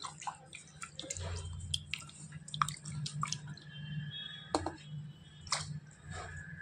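Tomatoes being washed by hand in a steel bowl of water: irregular splashing and dripping, with short sharp splashes.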